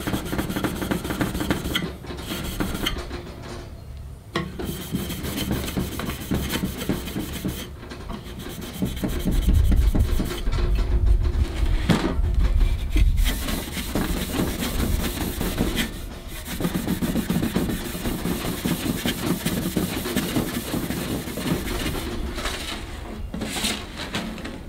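Red Scotch-Brite abrasive pad scrubbed by hand back and forth over the stainless steel sides of a portable charcoal grill: a light polish that puts a grain finish on the metal. The rapid rubbing strokes stop briefly several times, and a heavier stretch with a low rumble comes about ten seconds in.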